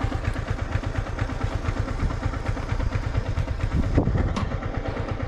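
Motorcycle engine running at low revs, a steady rapid throb, with a light knock about four seconds in.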